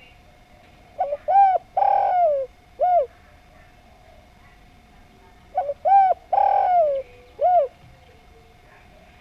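Spotted dove (derkuku, tekukur) cooing: two identical call phrases about four and a half seconds apart. Each phrase is a short note and a coo, then a longer, rougher note that falls in pitch, then a final coo.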